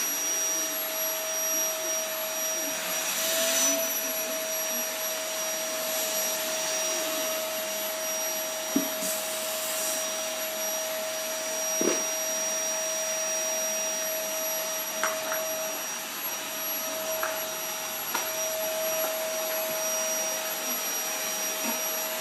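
Vacuum cleaner running steadily with a constant whine, with a couple of light knocks partway through.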